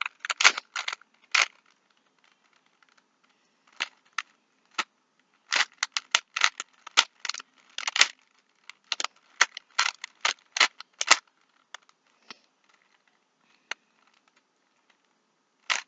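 Plastic Rubik's cube being turned by hand: irregular runs of sharp clicks and clacks as the layers are twisted, thinning out to a few stray clicks near the end.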